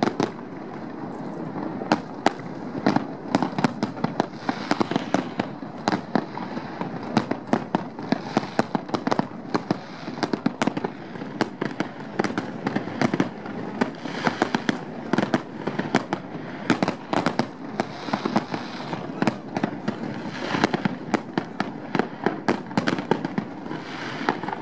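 Fireworks display: aerial shells bursting in many sharp, irregular bangs, several a second at times, over a continuous din.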